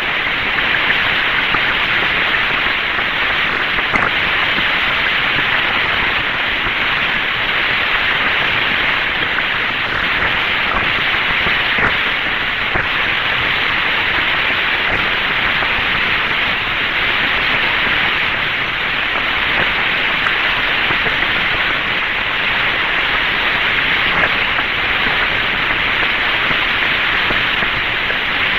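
Steady radio static hiss on the Friendship 7 capsule's voice channel, with a few faint clicks and no voice: an open channel while the capsule is out of contact with the ground.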